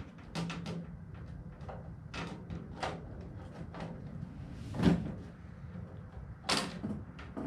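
Scattered light clicks and knocks of drawer hardware being slid onto a shelving rack, with louder knocks about five seconds in and again about a second and a half later.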